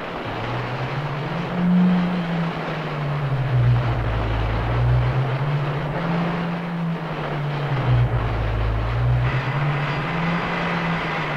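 Film sound effects: a rushing, churning-water noise under a low drone that slowly rises and falls in pitch about every four seconds. About nine seconds in, a thin steady high tone joins as the ray beam is fired.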